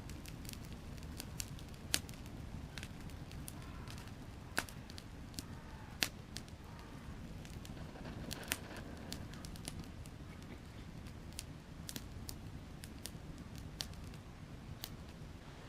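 Wood fire burning, crackling with sharp, irregular pops over a steady low rumble.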